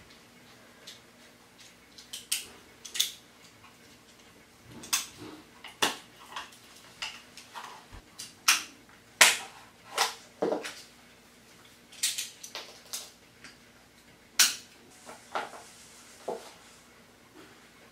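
Irregular clicks, snaps and rustles of hands unpacking an electric kick scooter from its shipping box, about a dozen sharp knocks and crackles of packing and parts being pulled and handled.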